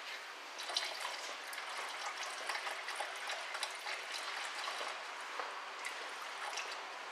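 Automatic transmission fluid draining from the drain hole of a ZF 6HP26 gearbox sump into a drain pan: a steady trickle and splash, flecked with small drips.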